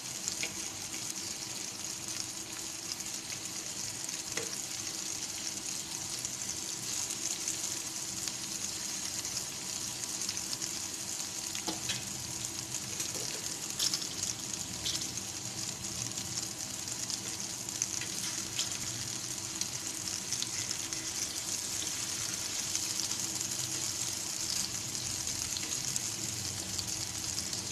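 Masala-stuffed green chillies sizzling steadily in shallow oil in a frying pan over a medium-low gas flame. A few clicks of the turning utensil against the pan come through.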